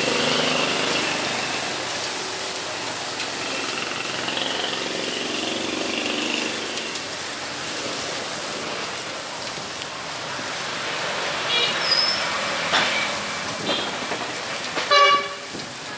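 Roadside grill stall: a steady sizzling hiss under a running vehicle engine. About a second before the end comes one short, loud pitched blast.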